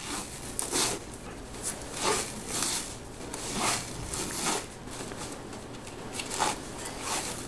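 3M Scotchcast soft casting tape being peeled and unwound from a short-leg cast, tearing away from the layer beneath in a series of short, irregular ripping sounds, about one or two a second.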